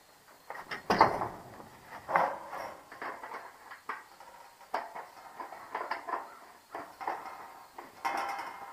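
Phillips screwdriver working screws into the thin sheet-metal housing of a patio heater, with irregular metallic clinks, scrapes and knocks from the steel parts; the loudest knock comes about a second in.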